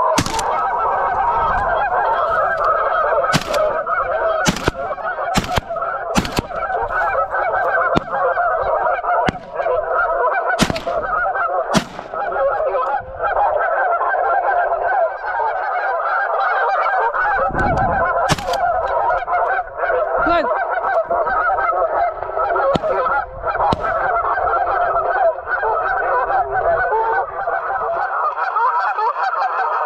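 Large flock of geese honking without a break, a dense overlapping chorus of many birds, with a few sharp clicks or knocks scattered through it.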